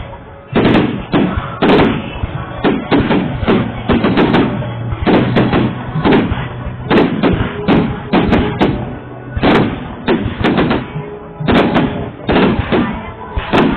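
Fireworks going off in a rapid, irregular series of bangs, several a second, each with a booming tail.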